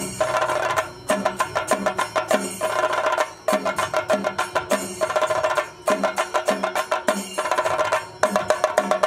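Kerala singari melam percussion: chenda drums beaten in fast, dense strokes over a steady ringing cymbal tone. Deeper drum beats pulse two or three times a second, and the phrase breaks off briefly about every two and a half seconds.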